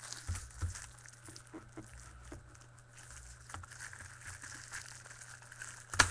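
Hands handling a trading card box and its wrapping: soft crinkling and scattered light taps, with one sharp knock near the end.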